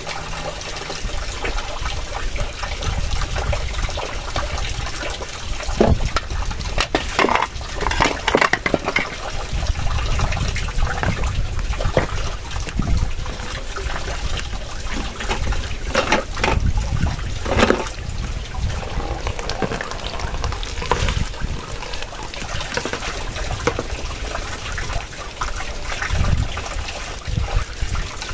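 Strong wind gusting, a steady rushing with a pulsing low rumble and scattered short rattles.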